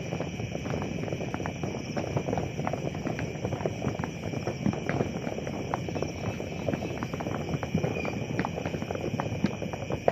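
Fireworks crackling and popping in a dense, irregular stream of small sharp bangs over a steady background hiss.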